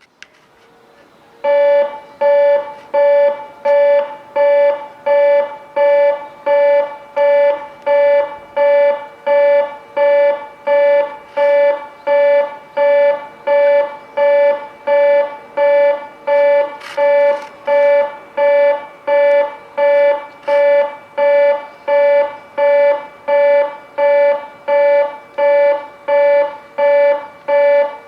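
Train-approach warning alarm at a railway station: an electronic buzzer tone pulsing evenly, about three beeps every two seconds. It starts about one and a half seconds in and keeps going.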